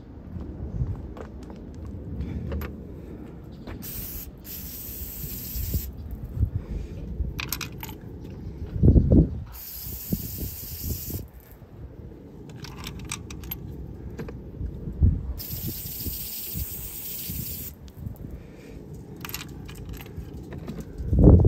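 Aerosol brake cleaner sprayed onto spark plugs in three hissing bursts of about two seconds each, with a fourth starting at the end. Low rumbling and a couple of loud thumps from handling come in between the bursts.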